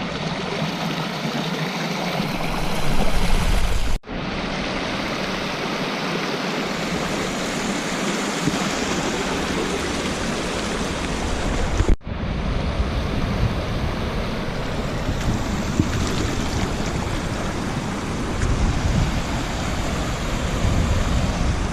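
Rushing water of a rain-swollen stream pouring over small waterfalls, a steady full hiss, broken off for an instant twice.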